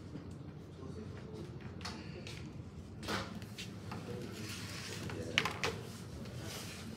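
Light knocks and clicks from hands handling a desktop model and table, about three seconds in and twice around five and a half seconds in, over steady room noise with faint murmured voices.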